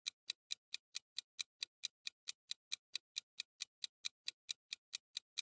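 Clock-style ticking sound effect, even ticks about four to five a second, a quiz countdown timer running while a question waits for an answer.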